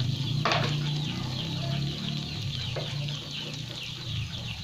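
Batter deep-frying in a wok of hot oil, with rapid, continuous high chirping from birds throughout and a brief knock about half a second in.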